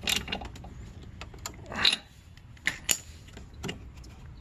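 Metal tools and small engine parts being handled on a lawnmower: irregular clicks and clinks, with a short scrape about two seconds in.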